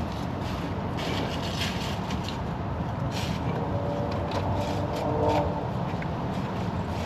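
A steady low vehicle rumble with a few faint clicks and scrapes of hands and small parts being worked in an engine bay.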